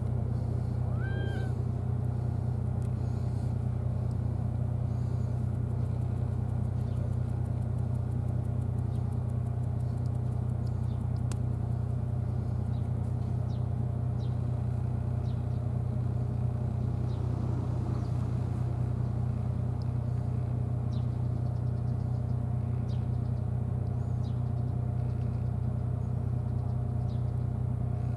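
Steady low hum of an engine idling, unchanging throughout. About a second in, a cat gives one short meow.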